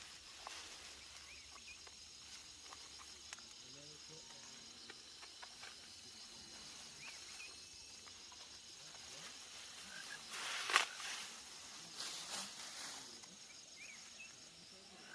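Outdoor ambience of an insect chirring steadily in a fast, even pulse, with a few sudden louder sounds about two-thirds of the way through.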